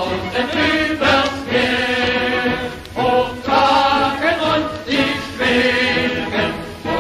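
Background music: a choir singing a chant-like melody in long held notes.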